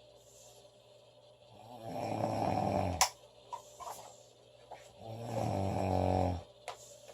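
A girl snoring loudly: two long, rough, buzzing snores about three seconds apart, each lasting a second or more. Short sharp clicks come between them.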